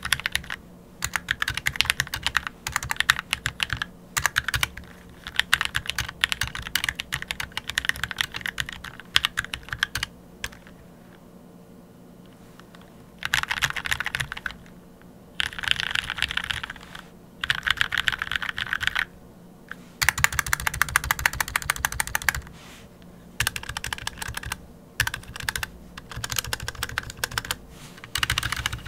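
Typing on an Anne Pro 2 60% mechanical keyboard fitted with Gateron Red linear switches, lubed with vaseline and lemon/orange juice, on a deskmat. Quick runs of keystrokes come in bursts of a few seconds with short pauses, and a longer pause a little before the middle.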